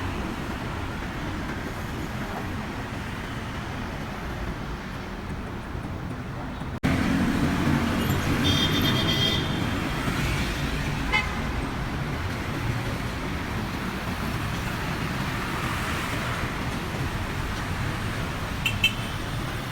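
Road traffic noise: a steady rumble of passing vehicles that gets louder after a cut about seven seconds in, with a short high-pitched horn toot a couple of seconds later.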